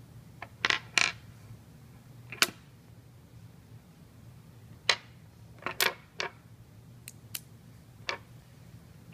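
Small metal cylinders of a magnetic pen clicking sharply against each other and tapping down on a wooden table, about ten scattered clicks over a faint steady hum.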